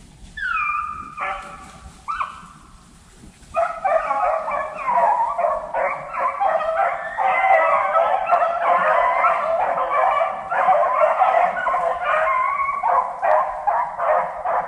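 A pack of beagles baying on a rabbit's track. A few single drawn-out howls come first, then about three and a half seconds in several dogs open up together in a continuous, overlapping chorus of bays and yips.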